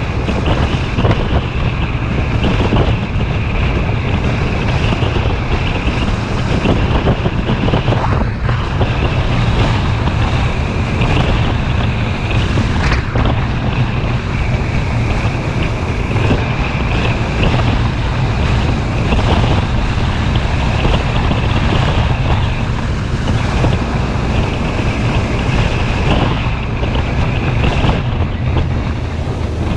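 A Suzuki V-Strom motorcycle running steadily on the move, with heavy wind noise rushing over the microphone throughout.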